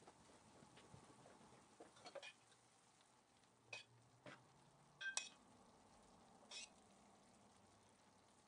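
Hot sugar syrup ladled over hot, freshly baked baklava in a metal tray: a faint sizzling hiss, with a few light metal clinks of the ladle against the pot.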